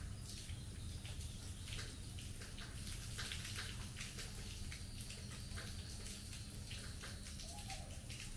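Monsoon rain falling steadily, a continuous hiss broken by irregular drips and splatters, over a steady low rumble.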